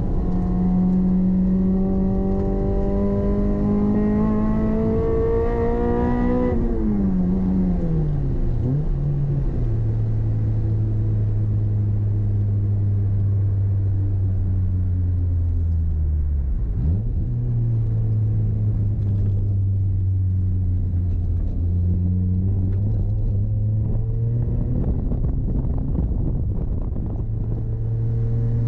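Toyota MR-S's swapped-in 2ZZ 1.8-litre four-cylinder engine heard from inside the cabin: it rises in revs for about the first six seconds, then falls away steeply and settles into steady low revs on a cooldown lap, with a brief dip and recovery in pitch about halfway through.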